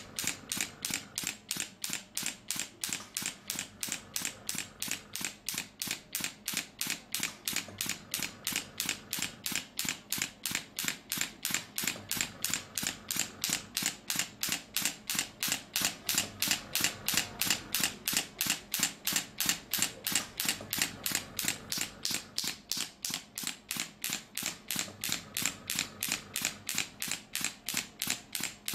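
Pneumatic radial shockwave therapy handpiece (SW9 machine, No. 3 transmitter head) firing against the shoulder: a steady, even train of sharp clicks, about three shots a second.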